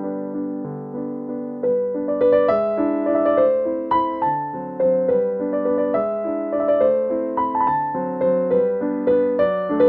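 Background piano music: a melody of single notes over held chords, growing louder about two seconds in.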